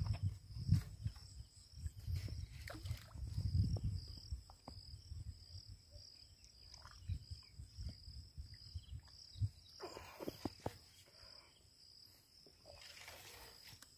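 Insects chirring steadily in one high, pulsing tone, with irregular low rumbles and thumps in the first four seconds and a brief rustling burst about ten seconds in.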